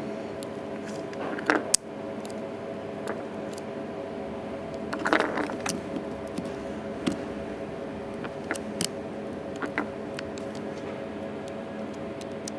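Scattered small clicks and brief scraping of tools and parts being handled on an opened iPhone 3GS during a battery replacement, over a steady background hum.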